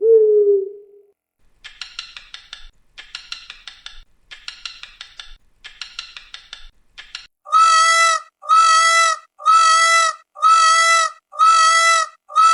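A series of animal calls: a low steady call that ends about a second in, then four bursts of rapid chattering, then six evenly spaced pitched calls of equal length.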